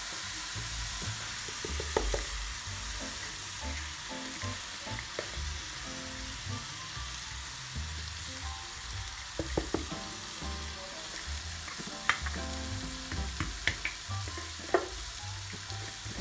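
Raw rice and potato cubes frying in a pan with a steady sizzle. Several sharp clicks and knocks come from the spoon and bowl against the pan, mostly in the second half.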